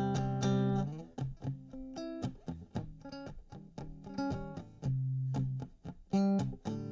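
Electric guitar playing an instrumental passage between sung lines: a chord rings out and fades over the first second, then single picked notes and short chords follow.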